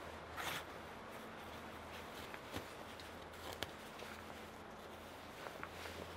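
Lime bast cord rasping and rustling as hand-made strands are twisted and braided together by hand, with a short rasp about half a second in and a few light clicks later on.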